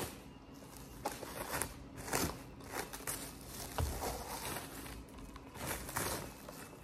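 Thin plastic wrapping crinkling and rustling in short, scattered crackles as it is pulled off a paper drink cup by hand.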